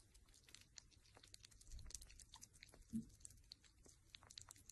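Sugar gliders licking and chewing at food in a small cup: faint, quick wet clicks, with one soft low bump about three seconds in.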